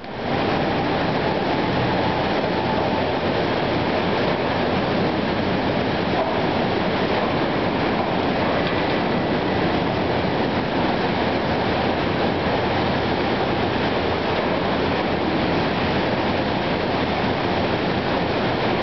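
Overhead slab crane and steel-mill machinery running: a loud, steady mechanical noise with no distinct knocks or changes while the crane's tongs carry a steel slab.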